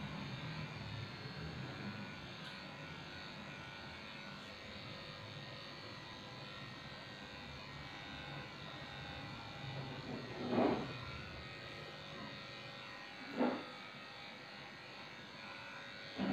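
Electric dog grooming clippers running steadily as they shave down a shih tzu's coat. Three brief louder sounds come in the last six seconds.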